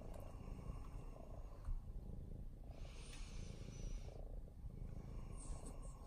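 Domestic tabby cat purring close by, a low steady rumble, with a brief soft hiss about halfway through.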